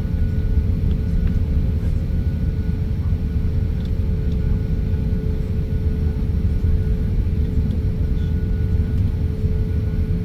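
A jet airliner on the ground before takeoff: a steady low rumble with a constant mid-pitched hum over it.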